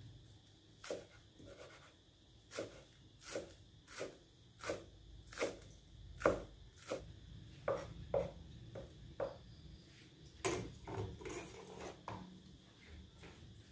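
Knife cutting bitter eggplant on a cutting board: evenly paced strokes about every two-thirds of a second, then a quicker run of smaller cuts after about ten seconds.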